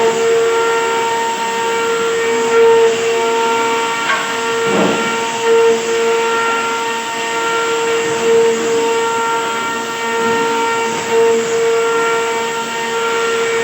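A woodworking machine running with a steady high whine and overtones, swelling in loudness about every three seconds. A brief rough scraping burst comes a little under five seconds in.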